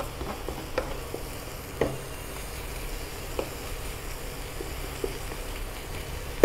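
Moringa (drumstick) leaves sizzling in a hot nonstick pan as they are stirred and pushed about with a wooden spatula, with a few light knocks of the spatula against the pan. The leaves are being sautéed dry with salt and a sprinkle of water until they wilt and cook.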